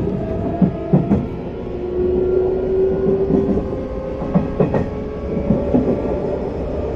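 Hanshin 1000 series electric train heard from inside a motor car while running: a steady motor whine over rail rumble, with wheels clacking over rail joints in quick clusters of two or three knocks.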